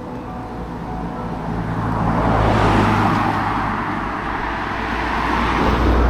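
Motor traffic passing close by: tyre and engine noise swelling to a peak about three seconds in, easing, then swelling again near the end.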